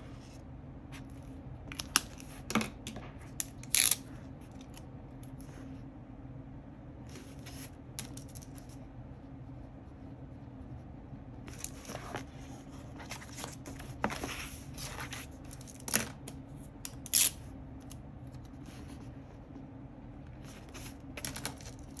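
Desk handling sounds of annotating a paperback: scattered clicks and taps, several of them sharp, and short stretches of paper rustling and tearing, as of pens, highlighters and sticky tabs, over a steady low hum.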